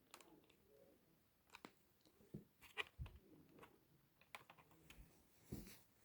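Faint, scattered small clicks and light taps at irregular intervals, with a soft low thump about three seconds in.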